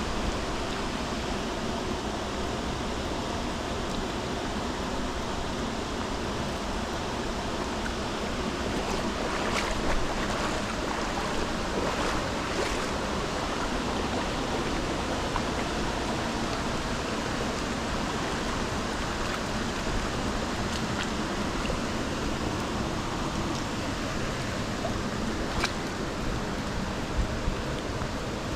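Steady rush of a small stream's flowing water, with a few faint, brief clicks about ten seconds in, a couple of seconds later, and again near the end.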